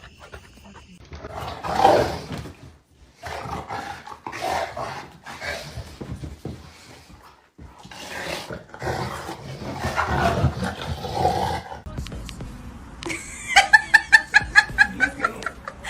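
A dog vocalizing in a string of rough bursts for about ten seconds, then a quick run of short high-pitched notes near the end.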